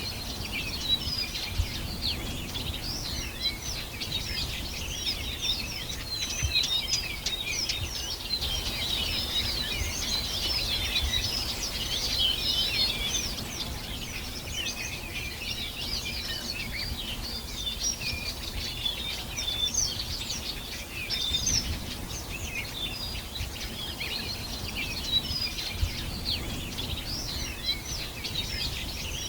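Many small birds chirping and singing at once: a dense chorus of quick, overlapping chirps and short trills, with no let-up, over a faint low rumble.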